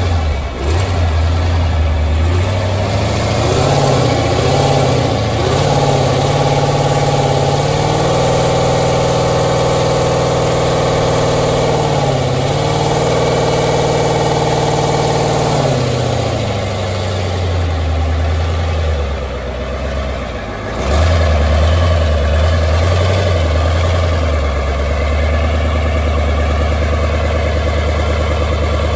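IFA V8 diesel engine from a Fortschritt combine, freshly started after sitting since the last harvest and running on a test stand. It speeds up over the first several seconds and holds a fast, steady speed with a brief dip about twelve seconds in. It then drops back, sags once around twenty seconds, and settles to a steady idle.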